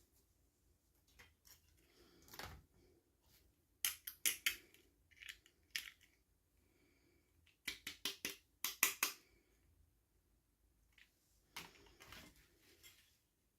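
Toy packaging being handled and opened by hand: scattered sharp clicks and crinkles, busiest about four seconds in and again about eight seconds in.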